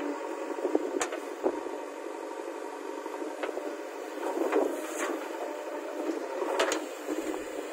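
JCB 3DX backhoe loader's diesel engine running steadily under hydraulic load as the backhoe lifts and dumps a bucket of soil into a tipper truck. A few sharp knocks sound over it, the loudest about six and a half seconds in.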